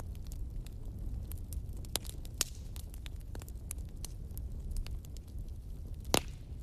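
Wood fire crackling in a fireplace: a steady low rumble with scattered sharp pops and snaps, one loud pop near the end.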